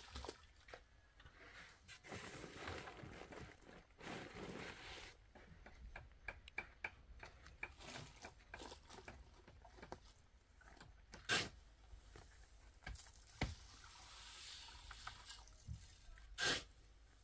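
Scattered light clicks and taps with some rustling, then three sharp knocks in the second half, the loudest sounds here.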